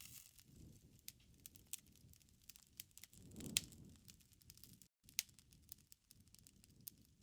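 Faint crackling wood fire: irregular small pops and snaps over a soft low rumble of flames, with one louder crackle near the middle. The sound cuts out for a split second about five seconds in.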